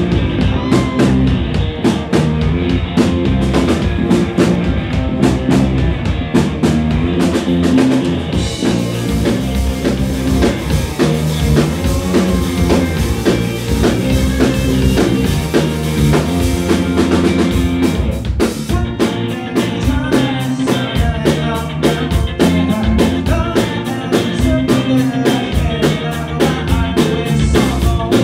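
Live rock band playing a song on electric guitars and a drum kit, with a steady drum beat; the sound fills out about eight seconds in.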